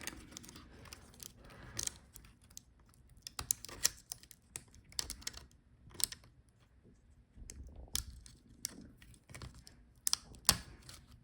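Scattered small, quiet clicks and ticks of hands and a tool working on a laptop's internals as the Wi-Fi antenna connectors are unclipped from the motherboard, with a couple of sharper clicks about six seconds in and near the end.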